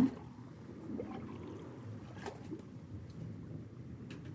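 Water slopping and bubbling in the bilges of a gaff-rigged sailing ketch, with distant seawash behind it: a low, steady slosh with small gurgles about a second in and again a little after two seconds.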